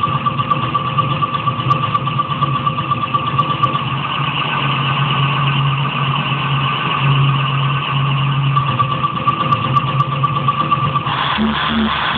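Electronic drone from a spinning kinetic light sculpture: a steady low hum under a pulsing higher tone, turning noisier with short repeated low notes about eleven seconds in.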